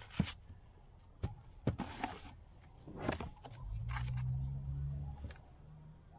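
Cart parts being handled and unpacked: scattered sharp knocks and clicks, with a few short rustles, as wheels and packing pieces come out of a plastic cart tub. A low steady hum comes in near the middle and fades about five seconds in.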